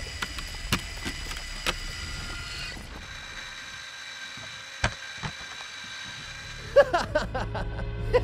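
A few sharp clicks and knocks of plastic LEGO parts from a motorized LEGO Technic car, about four in all and spread out, over faint steady tones. Near the end comes a quick run of gliding notes.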